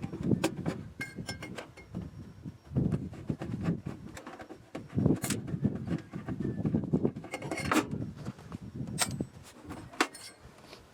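Irregular clinks, clicks and knocks of small metal parts and tools being handled while an RV furnace is taken apart.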